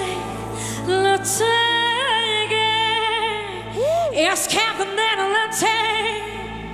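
A woman singing a slow, ornamented melody with wide vibrato over a sustained instrumental backing; about four seconds in her voice sweeps through quick arching runs.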